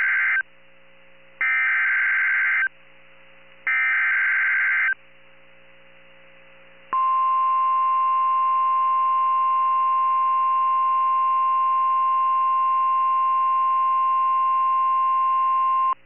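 NOAA Weather Radio emergency alert received over FM. The SAME data header plays as buzzy two-tone digital bursts: the end of one, then two more about a second apart, encoding a severe thunderstorm warning. About 7 seconds in, the steady single-pitched 1050 Hz warning alarm tone starts and holds, the signal that a warning-level alert follows.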